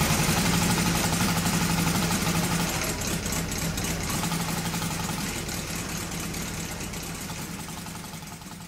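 Hand-built quarter-scale V8 model aircraft engine running steadily with its propeller spinning, holding an even pitch, the sound fading away gradually toward the end.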